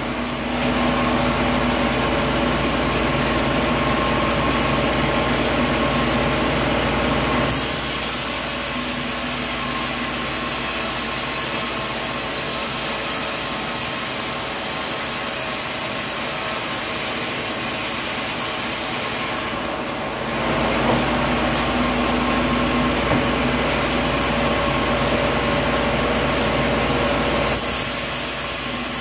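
Sawmill machinery running steadily as coconut logs are sawn, a loud continuous mechanical noise with a steady hum in it. The sound changes abruptly about a quarter of the way in, again about two-thirds through, and near the end.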